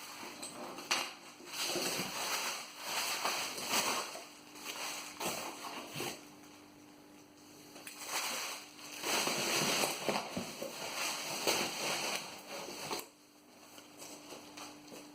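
Packaging rustling and crumpling with occasional clicks as the next box is opened and unwrapped, in two spells with a quieter pause between them.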